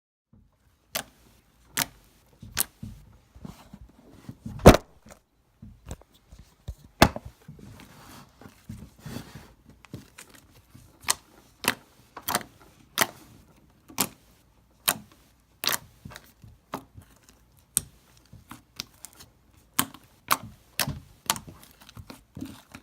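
Homemade slime being kneaded and squeezed by hand with shaving cream worked in, giving sharp, irregular clicking pops a few times a second. The loudest pop comes about five seconds in.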